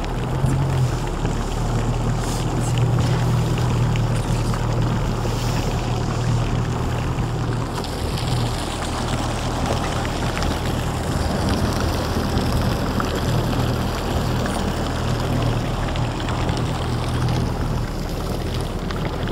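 Motorboat's engine running steadily underway, a low even drone, with the wash of water and wind over it.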